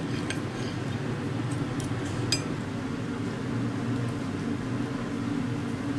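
Knife and fork clinking and scraping on a ceramic plate while cutting a cooked steak, a few light clinks over a steady low room hum.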